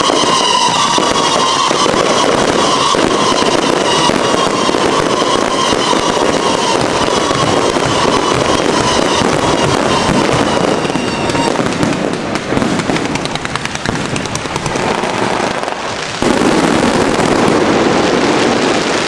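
Aerial fireworks going off in a dense, continuous crackle of bursts. Over the first ten seconds or so a high whistle slowly falls in pitch. The crackle eases a little, then comes back suddenly and loud about sixteen seconds in.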